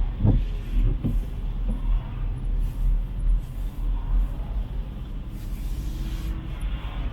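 City street traffic: vehicles running and passing, with a steady low rumble.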